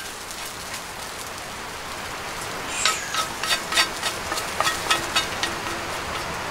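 Solo Stove wood-burning camp stove burning with a steady crackling hiss. From about three seconds in, a quick run of sharp clicks and scrapes as a utensil scrapes cooked bulgogi off a metal frying pan onto a plate.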